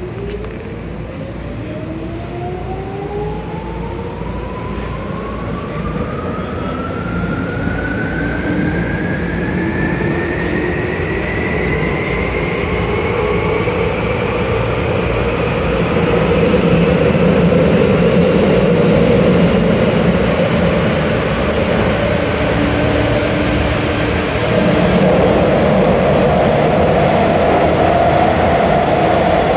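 Tokyu 8500 series subway train running, heard from inside the car: the field-chopper-controlled traction motors whine, rising steadily in pitch for about fourteen seconds as the train accelerates away from the station, then level off at speed. Under the whine, the rumble of wheels on rail grows louder and holds steady.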